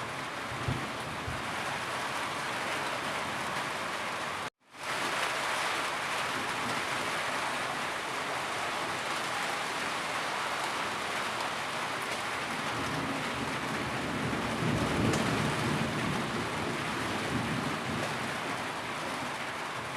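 Heavy rain falling steadily, with a low thunder rumble swelling in the second half. The sound cuts out abruptly for a split second about four and a half seconds in.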